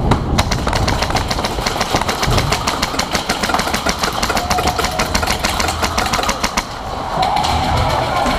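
Airsoft electric guns firing on full auto: a fast, steady rattle of many shots a second over a mechanical whine from the gearbox.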